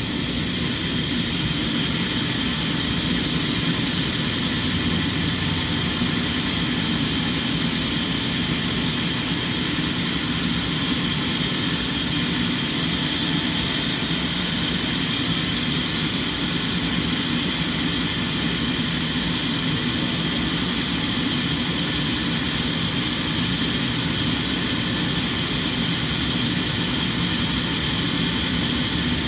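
Sawmill machinery running steadily, a continuous mechanical noise with a constant high whine and a low hum.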